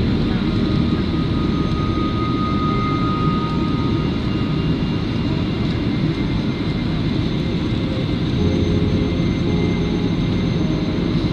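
Steady low cabin noise of a jet airliner in flight: engine and airflow noise heard from inside the passenger cabin as the plane descends on approach to land.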